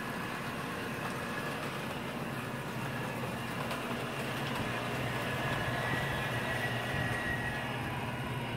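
Model train running on the layout: a steady rumble of wheels and motor on the track mixed with the diesel engine sound from the locomotive's MTH Proto-Sound 2 system.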